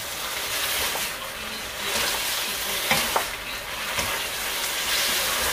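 Glass noodles frying in soy sauce in a pan, sizzling as they are stirred and tossed with a spatula. There are a few clicks of the utensils against the pan about three and four seconds in.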